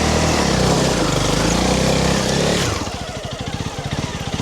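Honda CRF300 Rally's single-cylinder engine pulling hard under load in a low gear on a steep rocky hill climb. About two and a half seconds in the throttle closes and the engine drops to slow, evenly spaced low-rev firing pulses.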